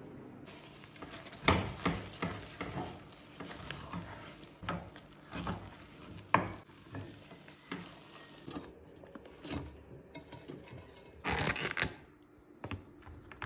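Spatula scraping and knocking against a non-stick pot while thick fufu dough is stirred and mashed, in irregular strokes with a few sharp knocks. A short, louder rustling burst comes near the end.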